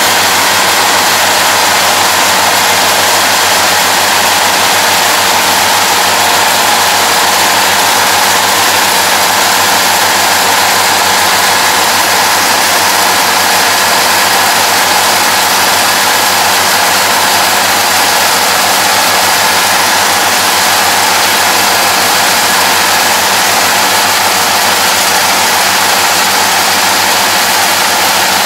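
Yanmar AE447 combine harvester running steadily at work, its diesel engine and cutting and threshing machinery making one unbroken loud drone with a lot of hiss, without change.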